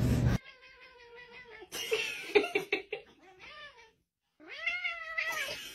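Cats meowing. After a short burst of noise that cuts off at the very start, there is one long drawn-out meow, then a run of short calls and clicks. After a brief silence, a second cat gives rising-and-falling meows.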